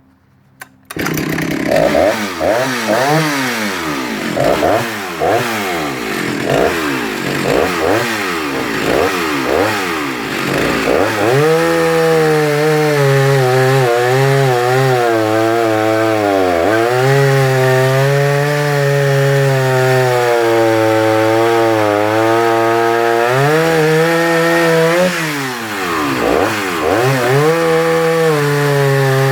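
Vintage Jonsered 49SP two-stroke chainsaw starting about a second in and being revved up and down several times. It then settles into a long cut through a roughly 13-inch log, its pitch pulled down and held steady under load, and rises and falls again near the end.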